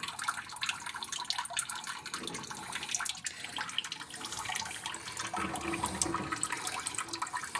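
Water sloshing, trickling and dripping in a partly filled asbestos-cement water tank as a hand moves a corrugated hose through the murky water, with many small splashy ticks.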